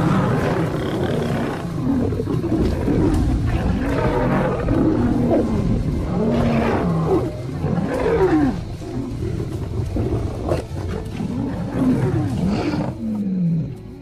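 Lions fighting, snarling and roaring without a break, several calls overlapping; it dies down about a second before the end.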